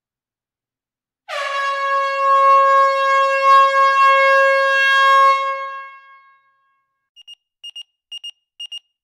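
A single loud horn blast, about four seconds long, that settles from a slightly higher start onto one steady pitch and then fades out. From about seven seconds in, an electronic alarm beeps in quick pairs.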